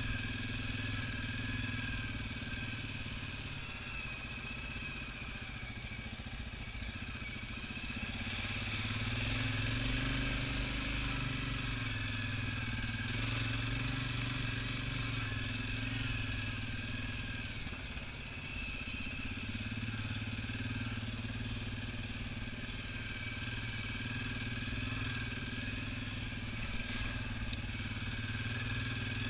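Single-cylinder four-stroke ATV engine running at low trail speed, its note rising and falling as the throttle changes over a rough dirt track.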